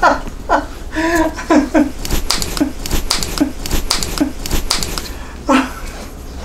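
Quick soft taps, about three a second, of raw eggs landing in the hands as two eggs are juggled. Short bits of voice come before them and again near the end.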